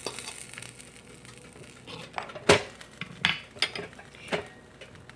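A few separate sharp knocks and clinks of dishes and utensils being handled, the loudest about halfway through.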